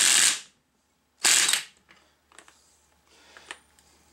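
Cordless power tool spinning a socket on a 1⅛-inch nut. It runs briefly and cuts off, then gives a second short burst about a second in as the nut comes off easily. A few faint metal clinks follow as the loose nut is handled.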